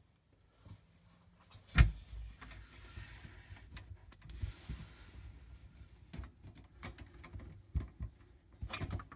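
Hands working a part into place inside a refrigerator freezer: one sharp knock about two seconds in, then scattered knocks, clicks and rustling, with a quick run of knocks near the end.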